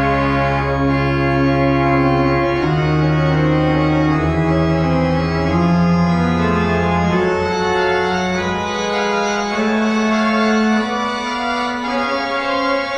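Organ music: slow sustained chords over held bass notes, with the bass dropping out about two-thirds of the way through.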